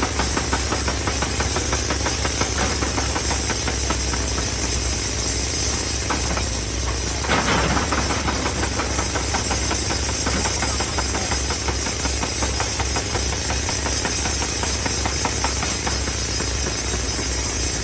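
Excavator's diesel engine running steadily under load with a fast, even clatter, and a brief loud crunch about seven seconds in as rock is struck or scraped.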